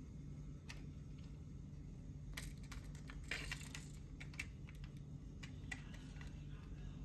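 Faint clicks and taps of small die-cast toy cars being set onto and rolled along the decks of a toy car-carrier truck, with a short run of rattling and scraping about three seconds in.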